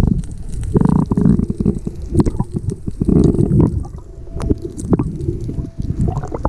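Muffled underwater sound heard through an action-camera housing: low rumbling and gurgling water with scattered sharp clicks and knocks.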